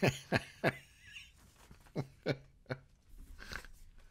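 Men laughing in short breathy bursts: a quick run of four in the first second, then three more about two seconds in, trailing off into softer breathing.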